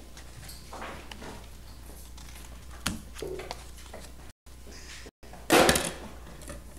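A sheet of paper and scissors being handled on a tabletop: soft rustles and a few light clicks, then a loud, brief rustle of the paper about five and a half seconds in. The sound cuts out for an instant twice just before that rustle.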